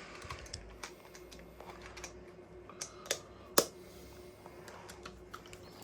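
Scattered small clicks and taps of hands handling motorcycle indicator parts and washers while fitting them, with a sharper click about three and a half seconds in.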